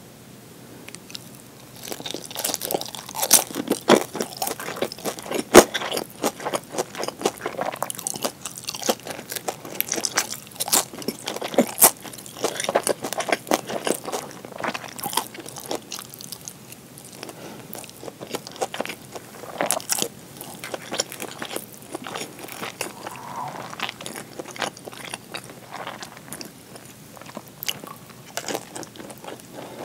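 Close-miked biting and chewing of pan-fried gyoza, their fried skins crunching crisply, with wet mouth sounds between bites. The crunching starts about two seconds in and goes on in many sharp crunches.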